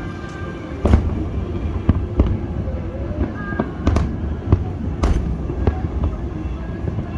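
Fireworks display: shells bursting in sharp cracks and deep booms at irregular intervals, starting about a second in.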